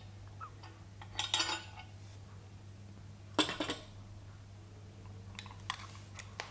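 Metal weights and their hanging hooks clinking and knocking as the creep-test loads are lifted off by hand: a few short clinks, about a second in, around three and a half seconds in, and again near five and a half seconds. A steady low hum lies underneath.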